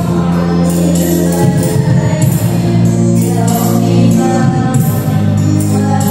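Qasidah-style sholawat: voices singing together over an electronic keyboard, with percussion jingles striking repeatedly.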